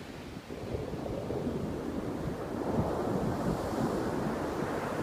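Ocean surf breaking and washing up a sandy beach, growing louder about a second in, with wind buffeting the microphone.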